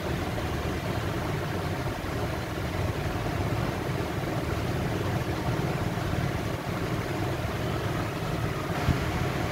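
Steady low rumbling background noise with no distinct events, and one brief knock near the end.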